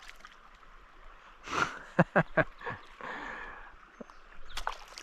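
Creek water running faintly, with a short whoosh and then a quick run of clicks and knocks about two seconds in, and one more click near the end.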